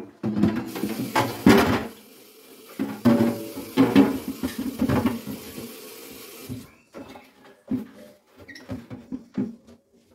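Kitchen tap running into a sink while a clear plastic refrigerator bin is washed, knocking and clattering against the sink. The water shuts off abruptly about two thirds of the way through, and a few separate plastic knocks follow.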